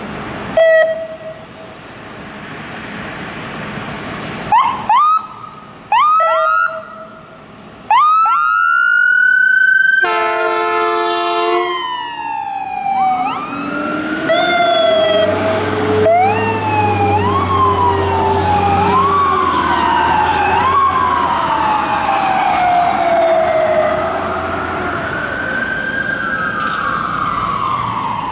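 Seagrave Marauder fire engine and Ram 4500HD rescue ambulance responding with sirens and air horn. A few short manual siren chirps sweep up in pitch, then an air horn sounds for about two seconds. After that two sirens wail together, one cycling up and down about every second and a half and the other in a long slow rise and fall, with a heavy truck engine running underneath in the middle.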